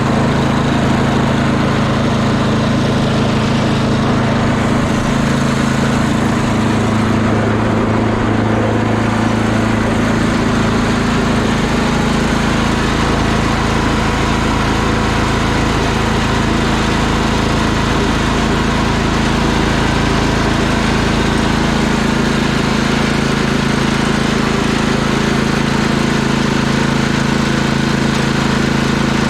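Tecumseh small engine of a Gilson snowblower running steadily, its carburetor freshly cleaned.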